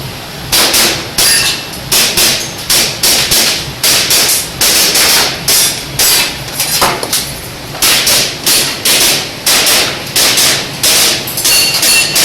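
Airsoft pistol firing a rapid string of shots during an IPSC ActionAir course of fire: about thirty sharp cracks, two to three a second, starting about half a second in and keeping on throughout.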